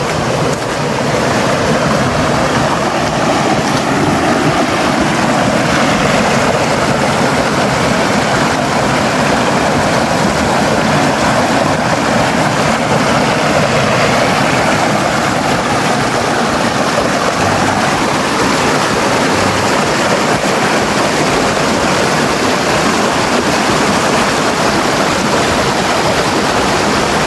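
Shallow rocky stream pouring over a low stone ledge in a small cascade: a steady rush of splashing water.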